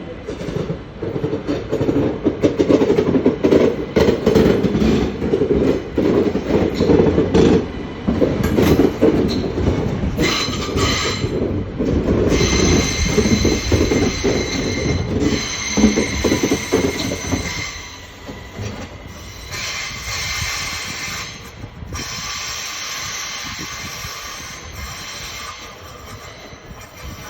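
ÖBB Cityjet train running on the rails: loud grinding, crunching rumble with rapid clacks for most of the first eighteen seconds. From about ten seconds in come high wheel squeals that cut in and out, and they go on after the rumble dies down.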